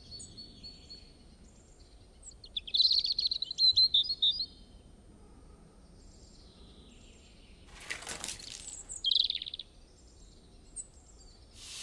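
Small songbirds chirping and singing. A thin high whistled note comes first, then a loud, rapid twittering phrase a few seconds in. A shorter twitter follows near the end, just after a brief rushing noise.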